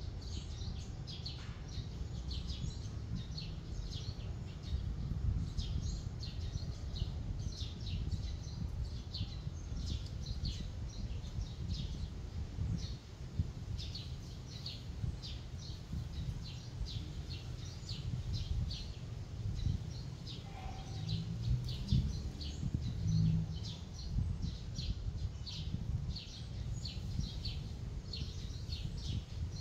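Small birds chirping, short high chirps repeating several times a second without a break, over a steady low rumble.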